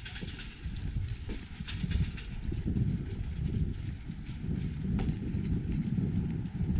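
Footsteps of someone walking at an even pace over a low outdoor rumble of street noise.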